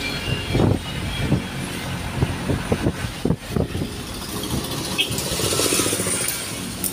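Toyota Dyna truck driving, heard from inside the cab: engine running under road noise, with irregular knocks and rattles through the first half and a louder engine buzz about five seconds in.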